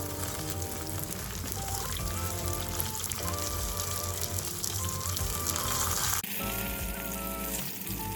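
Food sizzling in a frying pan, a steady hiss under background music with a simple melody; the sizzling stops abruptly about six seconds in while the music carries on.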